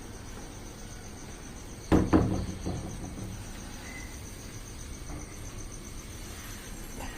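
A steady high-pitched chirping trill, pulsing evenly like a cricket. About two seconds in there is one loud knock with a short clatter after it.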